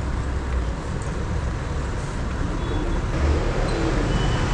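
Steady outdoor traffic noise: a continuous low rumble of passing road vehicles.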